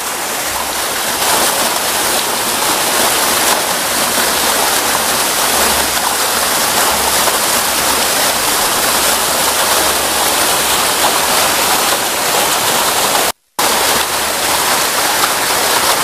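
Small waterfall pouring down a rock face, a steady close-up rush of splashing water. It is broken once by a split-second dropout about three-quarters of the way through.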